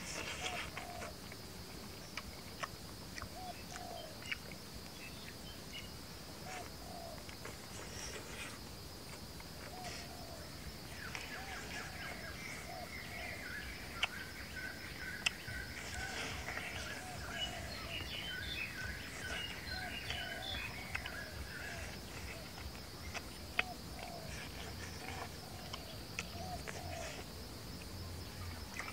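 Birds and insects calling: a steady high insect drone under repeated short bird calls, with a run of higher bird chirps from about ten seconds in to about twenty-two seconds. A few sharp clicks stand out over the top.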